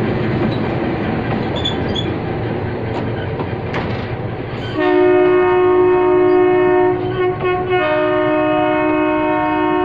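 Passenger train running past close by, its wheels rumbling on the rails; about halfway in a train horn starts a long, loud chord that breaks briefly and picks up again on a slightly different pitch, then cuts off suddenly.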